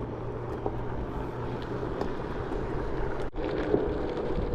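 Wind rushing over the action-camera microphone while riding an Onewheel GT electric board, with the steady hum of the board's motor underneath. The sound briefly drops out about three seconds in, then the hum goes on at a higher pitch.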